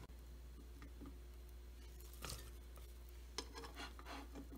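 Quiet kitchen room tone with a steady low hum and a few faint clicks.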